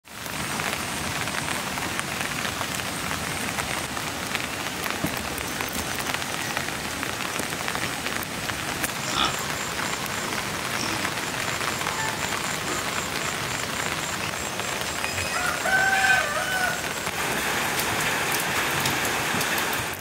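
Steady rain falling, with a rooster crowing once about three-quarters of the way through.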